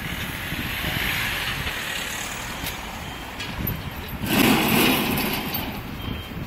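Street traffic on a multi-lane city road, with one vehicle passing close and loud about four seconds in.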